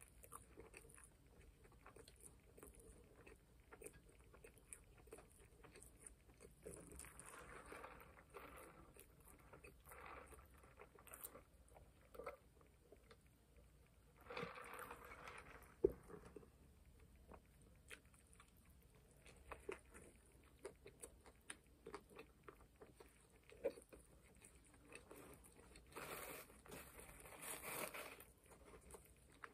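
Faint chewing and biting of a McDonald's burger and fries, with small wet mouth clicks. About halfway through comes a short stretch of sipping through a straw. Near the end a paper wrapper rustles.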